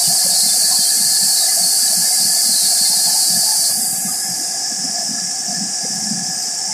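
WashTec automatic car-wash gantry running: a loud, steady high hiss with a steady whine underneath. The hiss eases slightly about four seconds in.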